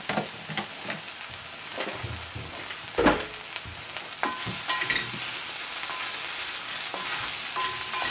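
Mushrooms and onions sizzling in an enamelled pot. A few sharp knocks come in the first half, the loudest about three seconds in. From about four seconds in, a wooden spoon stirs and scrapes through the pan, and the sizzle grows denser. The pan is hot enough that the spices are catching on the bottom, just short of burning.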